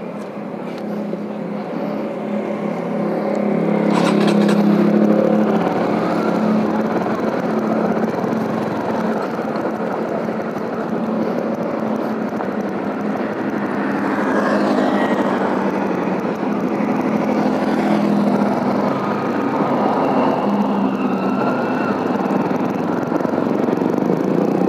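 Motorcycle engine running as the bike pulls away and rides along a street. The sound grows louder over the first few seconds and then holds steady under a broad road-and-wind noise.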